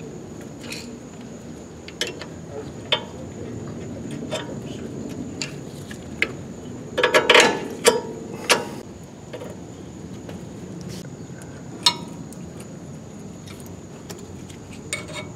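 Scattered light metallic clicks and knocks from a disc brake caliper and its slider hardware being handled and fitted, loudest in a short clatter about seven to eight and a half seconds in.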